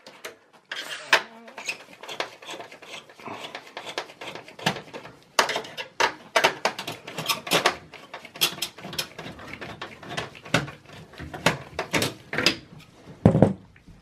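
A Torx T15 screwdriver undoing the screws of a desktop PC's CPU cooler and the metal heatsink being worked loose, with irregular clicks and metallic rattles. A louder, deeper thump near the end.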